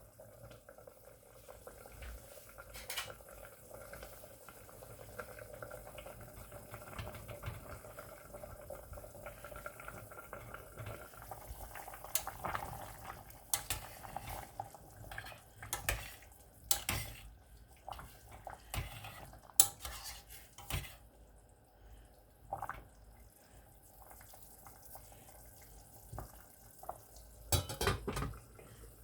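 Kitchen clatter: dishes, pots and cutlery knocking and clinking at irregular moments, with a faint steady hum under the first ten seconds or so.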